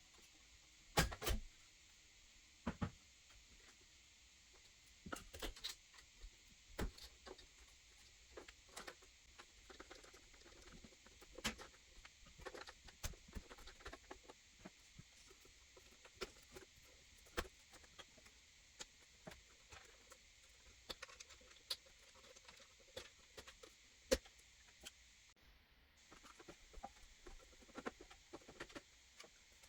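Irregular light clicks, taps and scratching from hands handling computer hardware parts, with a faint steady hiss underneath.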